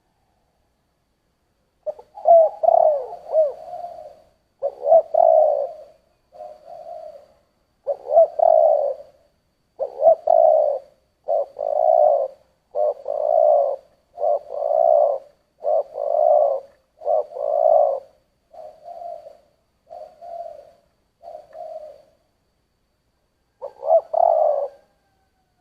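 Spotted dove (chim cu gáy) of the deep 'giọng thổ' voice type cooing: a run of low coo phrases, one every second or so, starting about two seconds in. The run breaks off briefly before a last phrase near the end.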